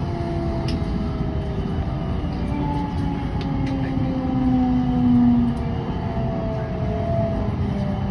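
Toshiba GTO-VVVF inverter of a JR West 223 series 0-bantai train whining as the train slows under braking: several tones glide slowly down in pitch together over the rumble of the running gear. A louder steady tone swells briefly a little past the middle.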